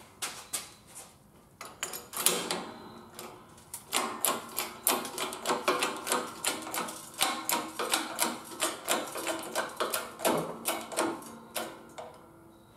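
Hydraulic bottle jack of a 20-ton shop press being pumped by its steel handle. First a few clanks of the handle going into its socket, one ringing loudly about two seconds in. Then a steady run of metallic clicks and clanks, about two a second, as the ram presses a bent pallet jack beam straight.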